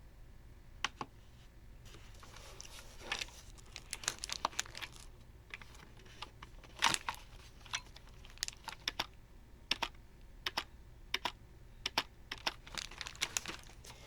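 Typing on a Furycube IP98 wired membrane keyboard: irregular keystroke clicks in quick runs with short pauses.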